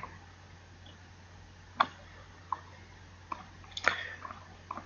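A few sharp computer mouse clicks, spaced irregularly with a small cluster near the end, over a steady low hum.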